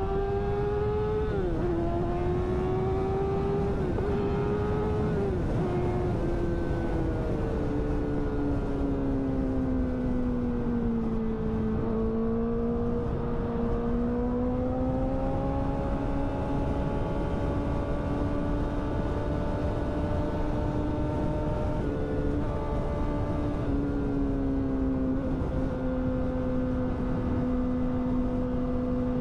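Yamaha sport motorcycle engine pulling at high revs with a high-pitched, steady engine note. The pitch drops sharply about a second and a half in and twice more a few seconds later as gears change, sags slowly near the middle, then climbs and holds, over a constant low rush of wind.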